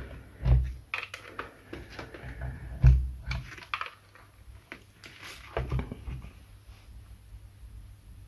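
Clicks and knocks of a handheld digital multimeter being handled: button presses on its plastic case, with three louder dull knocks against the table, quieter over the last couple of seconds.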